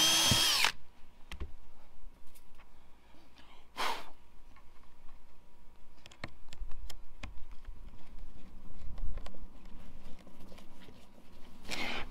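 Cordless drill driving a screw into the boat deck: a short run of the motor whine rising and falling at the start, and another brief pulse about four seconds in. Then light clicks and scrapes of a hand screwdriver turning a small screw, and a short rasp near the end as the strap is handled.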